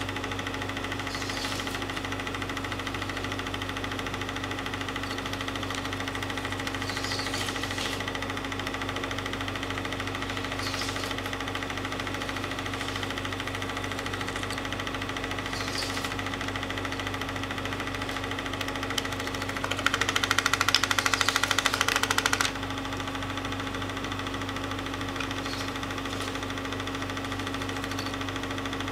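Movie projector running: a steady motor hum with the clatter of the film mechanism, and a louder rattling stretch of about two and a half seconds about two-thirds of the way through.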